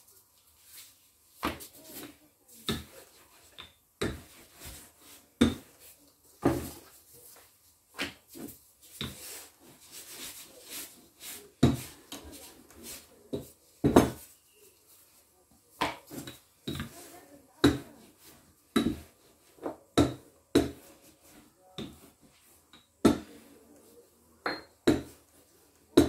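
Wooden rolling pin knocking and rolling on a countertop as dough is rolled out thin, a run of irregular thuds about once a second.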